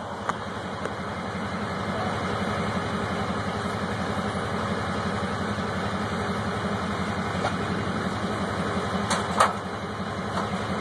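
A vehicle engine idling steadily close by, with a few light clicks near the end.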